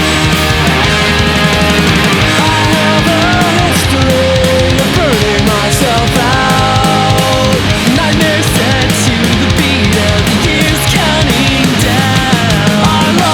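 Instrumental passage of fast melodic punk rock with a heavy-metal edge: distorted electric guitars carry a lead melody over bass, drums and cymbals.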